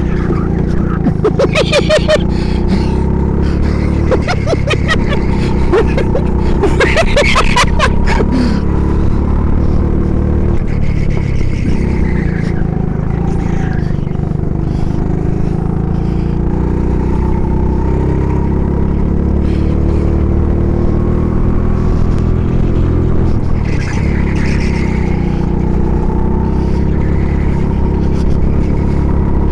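Go-kart engine running at racing speed, heard on board from close by, its pitch rising and falling as the kart accelerates and slows through the corners. Two spells of rapid rattling clicks come in the first eight seconds or so.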